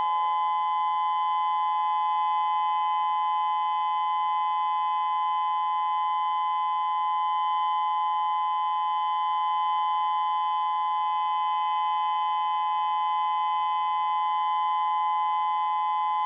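Outdoor civil defense warning siren sounding in a test of Hawaii's nuclear attack warning system, already wound up to full pitch and holding one steady tone made of two close notes.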